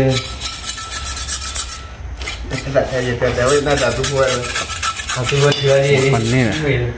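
Rapid rasping, scraping strokes, with a man's low voice talking through the second half.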